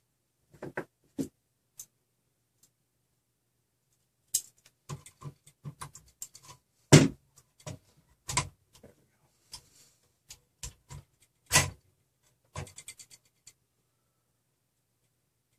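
Hands working on a RepRap Prusa Mendel's Z-axis motor couplings and frame parts: irregular clicks and light knocks. A few come in the first second and a half, then a dense run from about four seconds in, loudest around seven and eleven and a half seconds.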